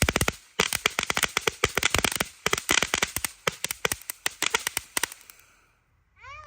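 Winda Koi Pond firework fountain crackling, a dense run of sharp cracks that thins out and dies away about five seconds in as the fountain burns out. A high, wavering call starts just at the end.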